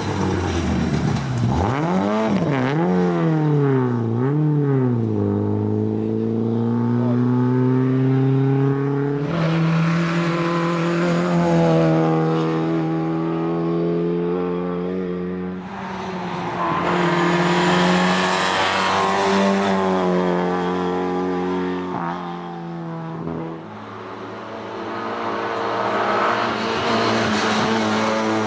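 A Lada 2107 Group A rally car's four-cylinder engine running hard at speed, its pitch dipping and climbing repeatedly as the driver works the throttle through the bends.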